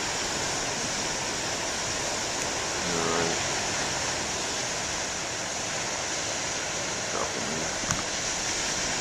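Ocean surf breaking on a beach: a steady, unbroken rush of big waves.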